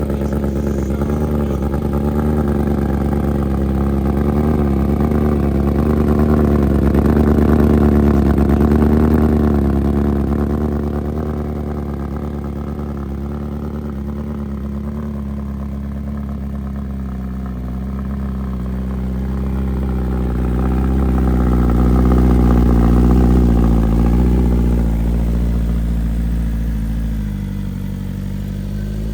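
2023 BMW S1000RR's inline-four engine running at a steady cold-start idle through a Brock's Performance full exhaust system with a carbon-fibre muffler. The note swells a little louder twice, then settles.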